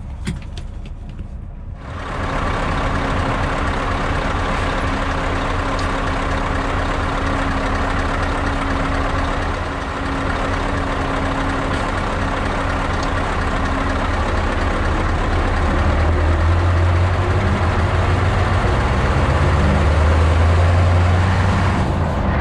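Scania S650's V8 diesel truck engine running close to the microphone, idling steadily at first. From about two-thirds of the way in its low drone grows louder and climbs in steps as the lorry pulls away and gathers speed.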